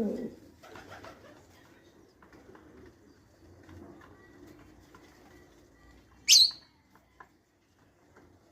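Buchón Rafeño pouter pigeons: a low gliding coo right at the start, then faint low sounds, and one short, sharp, high-pitched sound about six seconds in.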